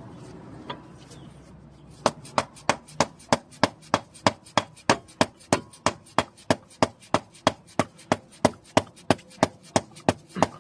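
A hand ratchet running a bolt down, its pawl clicking in an even run of sharp clicks, about three a second, starting about two seconds in.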